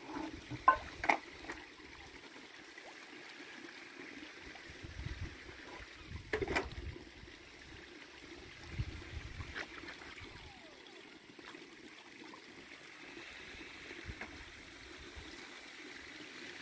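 Koi pond water trickling steadily, with a few brief sharp sounds at the surface about a second in and again about six seconds in.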